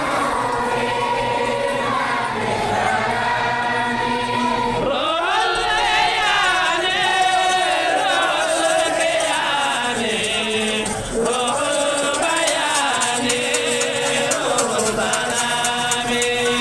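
A group of voices chanting together in a continuous melody of held, wavering notes.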